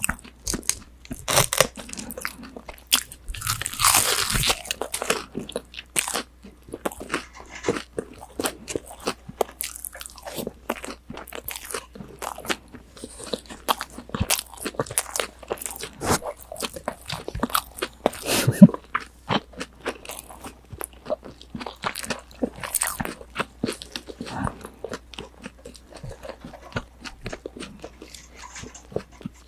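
Crispy breaded tonkatsu (deep-fried pork cutlet) being bitten and chewed close to a binaural microphone: a dense run of crunches and crackles, with a long, loud crunching bite about four seconds in.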